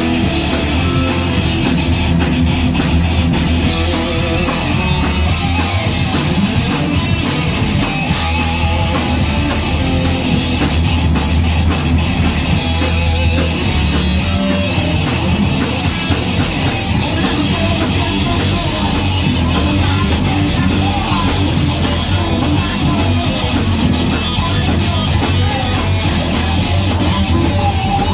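Thrash metal band playing live, loud: distorted electric guitars, bass and fast drumming, as heard in a bar venue.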